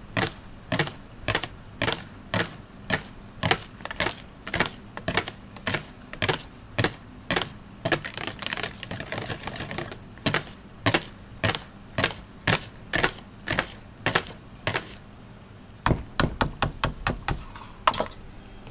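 Wire balloon whisk beating a thick cream mixture by hand in a plastic bowl, its wires clicking against the bowl about twice a second. About eight seconds in, the whisking turns faster and swishier for a couple of seconds. Near the end there is a quick run of sharper knocks.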